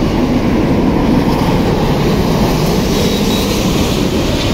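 Airbus A350-900's Rolls-Royce Trent XWB jet engines, a loud steady rumbling rush as the airliner passes low overhead on final approach with its landing gear down.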